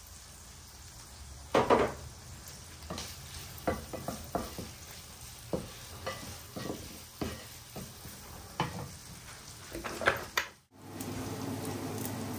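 Wooden spoon stirring olives in a frying pan, scraping and knocking against the pan in short irregular strokes over a light sizzle of frying. After a brief cut near the end, a steadier sizzle.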